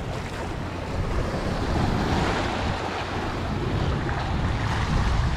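Small waves washing and splashing against the boulders of a rock jetty, with wind buffeting the microphone in a low rumble.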